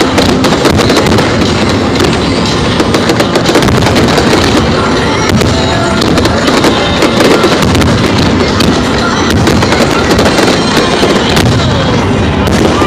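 Aerial fireworks going off in a dense, unbroken barrage of bangs and crackles.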